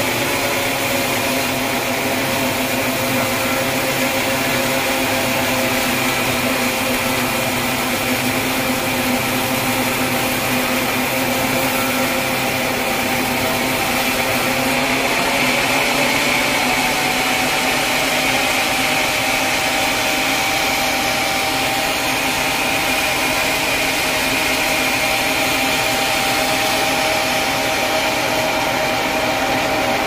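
Band sawmill running, its blade sawing lengthwise through a large log: a steady machine drone with several held tones that shift slightly in pitch about halfway through.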